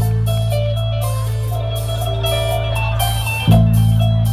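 Isan mor lam band music: a melody of plucked-string notes over a held low drone, with drums.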